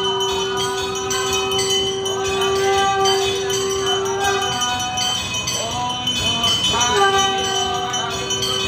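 Music with a long held note that drops out about halfway and comes back near the end, with sliding notes in between and bell-like ringing behind it.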